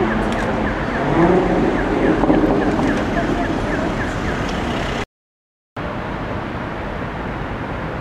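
Chevrolet Corvette C7 Stingray's 6.2-litre V8 with a Corsa aftermarket exhaust pulling away in traffic, its pitch rising in two surges in the first couple of seconds over city traffic noise. The sound cuts off about five seconds in and comes back as an even, steady traffic noise.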